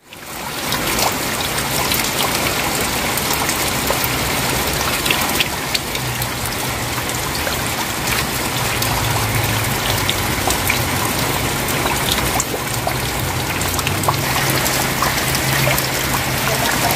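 Steady rain with many small drops pattering and water dripping off wet corrugated-iron and tile roofs.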